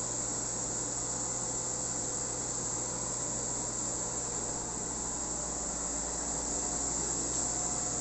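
Steady, high-pitched insect chirring, like crickets, over a low steady hum; no change or break throughout.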